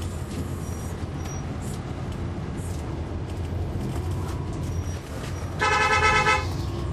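Transit bus's Cummins ISL9 diesel engine running steadily with a low hum, heard on board. A vehicle horn sounds once, for just under a second, about two-thirds of the way in, louder than the engine.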